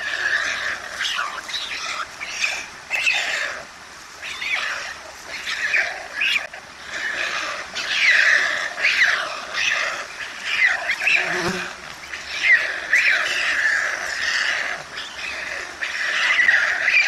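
White stork nestlings begging for food: a continuous chorus of many short, rasping calls overlapping one another.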